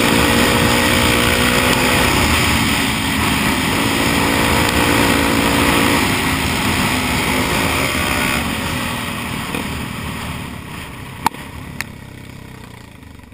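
Dirt bike engine running at a steady cruising speed with wind noise over the helmet camera; about six seconds in the throttle is rolled off and the engine and wind die down. Two sharp clicks near the end.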